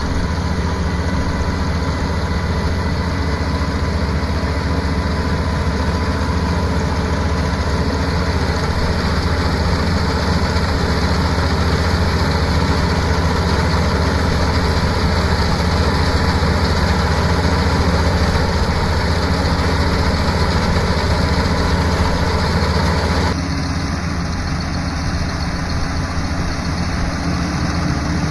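Rice combine harvester's engine running steadily under load. About 23 seconds in, the sound changes abruptly and becomes a little quieter and duller.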